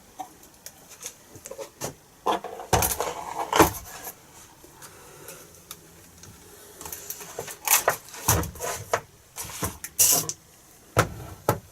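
Irregular knocks, taps and bumps of a hot-wire-cut foam flying wing being handled and turned around on a bench.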